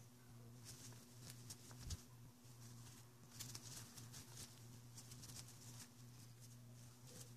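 Faint rustling and light clicks of gloved hands wiping a motorcycle clutch master cylinder's lever and piston with a cloth shop towel, over a steady low hum, with one soft thump about two seconds in.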